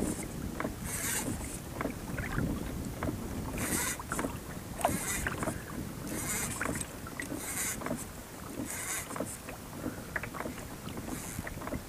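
Fly line being stripped in by hand in short pulls, making a series of brief swishes, over a low wind rumble on the microphone.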